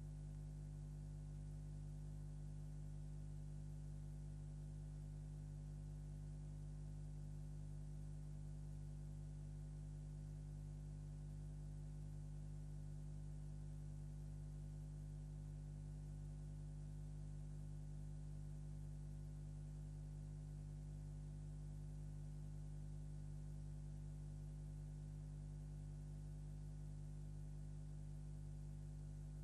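Steady electrical mains hum with a stack of buzzing overtones and faint hiss, unchanging throughout; no sound from the scene itself is on the track.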